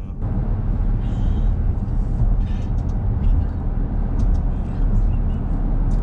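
Car driving at road speed, heard from inside the cabin: a steady low rumble of road and tyre noise.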